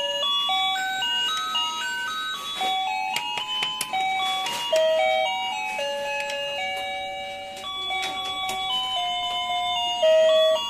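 Electronic tune from a Peppa Pig villa toy's sound chip: a simple melody of plain beeping notes stepping up and down. A few plastic clicks and knocks from handling the toy come near the middle.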